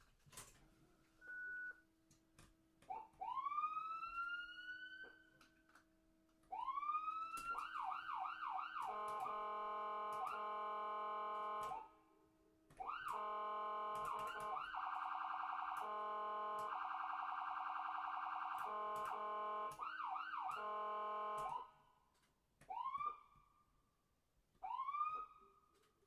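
Ambulance siren cycling through its modes, with short gaps between them. It starts with slow rising wails, then a quick run of rising yelps, then a long steady tone that turns into a fast pulsing warble. Near the end come two short rising chirps.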